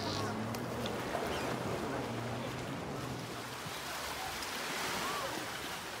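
Small sea waves breaking and washing onto a pebble beach: a steady hiss of surf.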